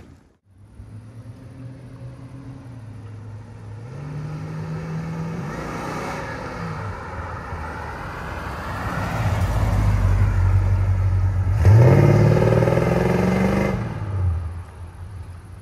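A 1972 Chrysler New Yorker Brougham's 440 cubic-inch (7.2-litre) V8 drives up and past, growing louder. About twelve seconds in it revs up with a rising pitch as the car accelerates, then fades as the car moves away.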